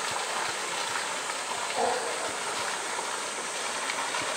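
Steady rushing of flowing water, with a short louder sound about two seconds in.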